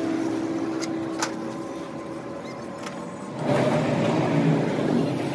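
A motor vehicle's engine running, low at first with a single click a little over a second in, then growing louder about three and a half seconds in.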